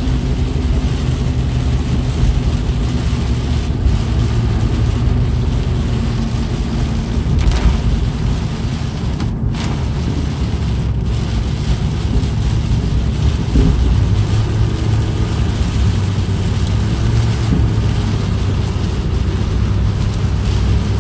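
Car driving on a rain-soaked road, heard from inside the cabin: a steady low engine and road hum under the hiss of tyres on wet pavement and rain on the windshield.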